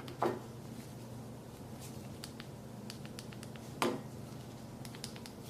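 Faint scattered clicks and light taps of a smartphone being handled, over a low steady hum, with two slightly louder short sounds about a quarter second in and just before four seconds. No stun-gun crackle is heard.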